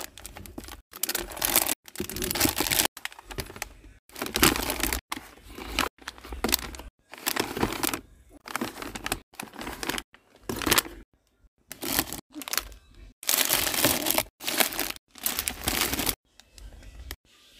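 Plastic snack bags crinkling as they are handled and packed into a bin. The sound comes in a series of short bursts that stop abruptly, one after another.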